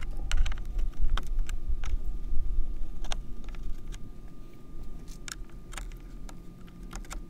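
Irregular clicks and knocks of gloved hands working on a BMW F30's plastic windshield cowl and its quarter-turn fasteners, over a low rumble.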